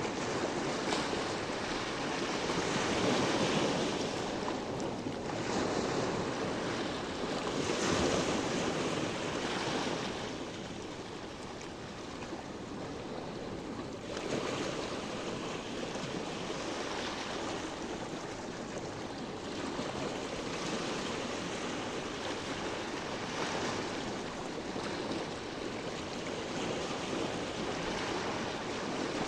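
Sea waves washing in, swelling and easing every two to three seconds, then settling into a steadier, softer wash about ten seconds in.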